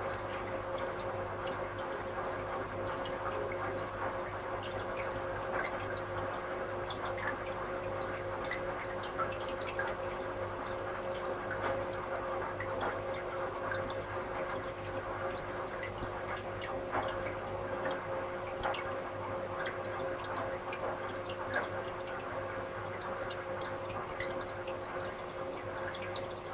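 Aquarium water running steadily with small bubbly crackles, over a steady motor hum.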